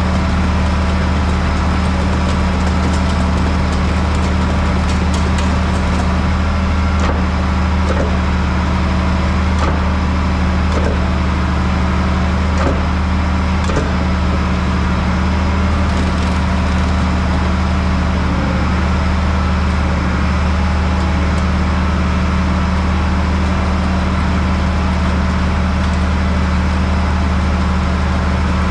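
A heavy vehicle's engine running at a steady low drone, with a few faint knocks and rattles between about seven and fourteen seconds in.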